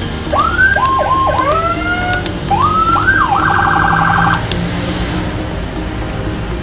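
Vehicle-mounted electronic siren worked from a Whelen-type handheld controller, giving a string of short rising whoop chirps, then a very fast warble for about a second that cuts off a little past four seconds in.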